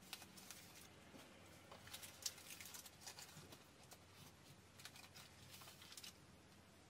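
Faint crinkling and crackling of a paper baking cup being handled and peeled off a Portuguese egg tart, many small crisp crackles that stop about six seconds in.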